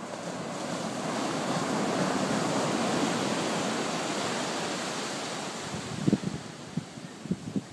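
Sea surf washing in: one long swell of wave noise that builds over about two seconds and slowly fades away. A few short low gusts of wind buffet the microphone near the end.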